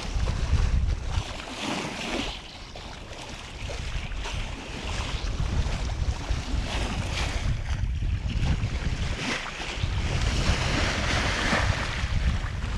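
Wind gusting across the microphone over the rush and splash of sea water along a sailboat's bow as it moves through choppy water, the hiss of the water swelling in surges.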